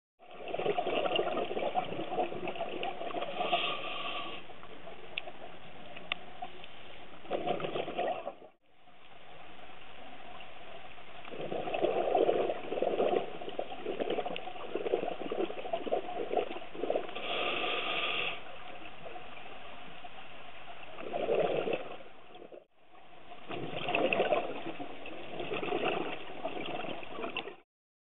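Underwater sound of a scuba diver breathing through a regulator: a rush of exhaled bubbles every few seconds over a steady hiss. The sound breaks off briefly twice.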